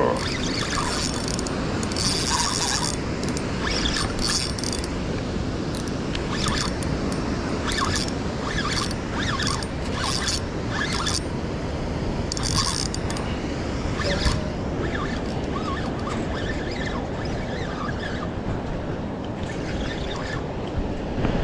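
Steady rush of whitewater churning below a dam spillway, with scattered short clicks and scrapes close to the microphone.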